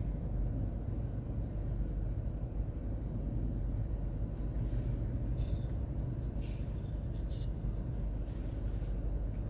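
A machine's engine running steadily, a low rumble with a few faint clicks over it.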